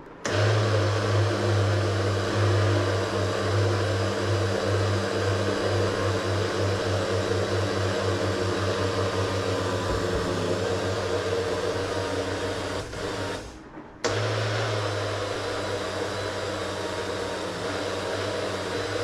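Electric blender motor running, churning milk and frozen cherries; with the frozen fruit in the jar the machine seems to be labouring. The motor cuts out for about a second roughly two-thirds of the way through, then starts again.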